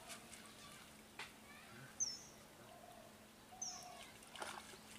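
Quiet pond-side ambience: a bird gives a short high chirp about two seconds in and another a second and a half later, over faint splashes of water as a cast net is worked in the shallows.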